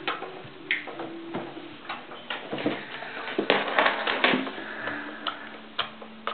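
A plastic picnic cooler being knocked and shoved on a wooden floor by a baby's hands: scattered taps and knocks, with a louder cluster of bumps and scraping about three and a half to four seconds in.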